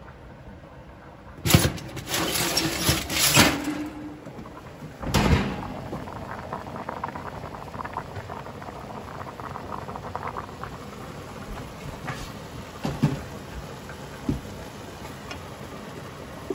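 Kitchen cooking noises: a few loud clattering knocks in the first few seconds, then a pot of water at a rolling boil on the stove, bubbling with a steady fine crackle, and a couple of light taps near the end.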